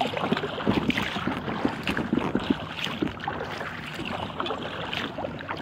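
Water lapping and splashing against the hull of an inflatable kayak as it is paddled: a busy, irregular patter of small splashes and drips.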